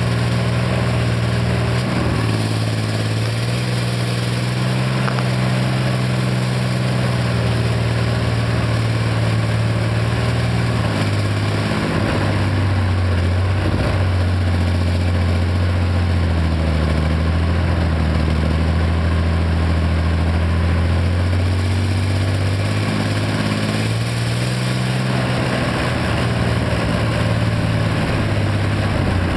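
Armoured vehicle's engine running steadily while the vehicle drives, heard from its open top deck; the engine note drops to a lower pitch about a third of the way in and climbs back up near the end.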